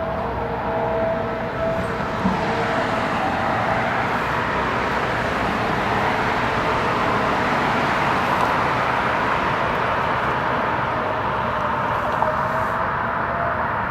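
Road traffic passing the roadside recording spot: a vehicle's tyre and engine noise that swells, peaks mid-way and slowly fades.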